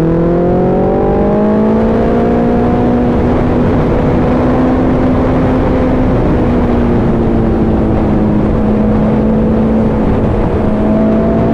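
Suzuki Hayabusa's inline-four engine pulling up through the revs for about two seconds, then holding a nearly steady pitch at highway speed, with heavy wind rush over the microphone.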